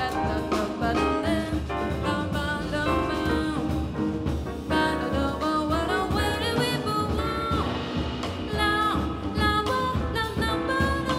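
A female jazz vocalist singing a slow, held melody line, accompanied live by a jazz band of piano, bass and drums.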